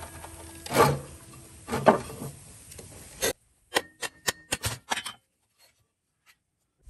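Hammer blows on metal, knocking the mower engine's stuck clutch loose: two heavy strikes about a second apart, a sharper knock a little later, then a quick run of light metallic clicks.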